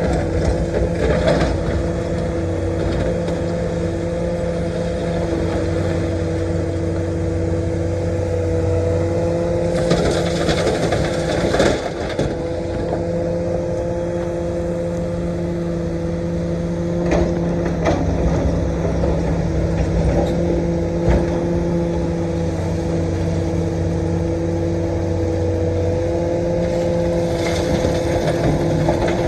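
Komatsu PC450-8 LC excavator's diesel engine running steadily under working load, its pitch rising and falling a little as the hydraulics work. Occasional knocks and scraping from digging earth and rock, most marked about ten to twelve seconds in.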